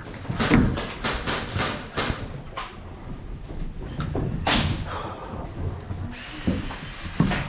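A quick run of knocks and thuds over the first couple of seconds, then a few scattered ones later.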